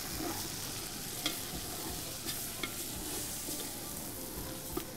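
A wooden spoon stirs chicken, onions and spices frying in a large aluminium pot, over a steady sizzle. The spoon knocks against the pot a few times.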